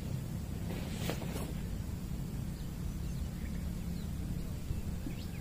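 A few faint, short bird chirps over a low steady rumble, mostly in the second half.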